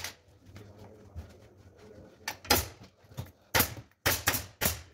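Pneumatic upholstery staple gun firing staples into a wooden sofa frame, fixing fabric. It gives a series of sharp shots, about six, mostly in the second half.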